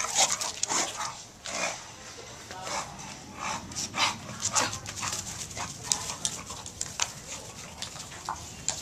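English bulldog making a run of short, noisy sounds, about two a second and unevenly spaced.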